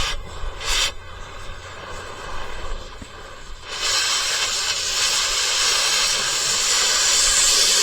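Cutting torch hissing as it cuts through the splitter's steel: a short burst of hiss near the start, then a steady loud hiss from about four seconds in that stops abruptly at the end.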